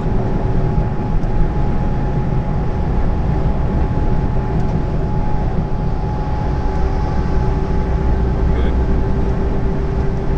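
Steady drone inside a lorry's cab at motorway speed: diesel engine, tyre and wind noise, with a steady hum running through it.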